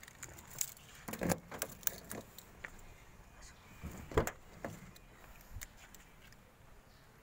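Keys jangling in hand with a run of small clicks and knocks, the loudest knock about four seconds in, as a car door is opened.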